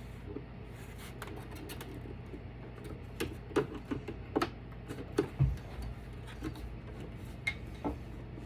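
Irregular sharp clicks and light knocks of a battery backup's plastic case and parts being handled, bunched from about three seconds in, with one duller thump in the middle, over a steady low hum.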